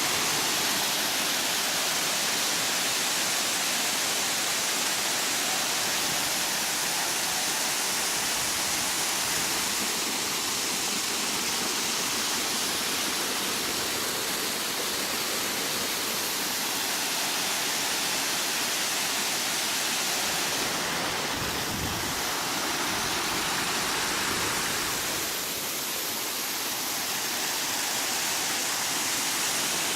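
A 38-foot waterfall: a steady, even rush of falling water.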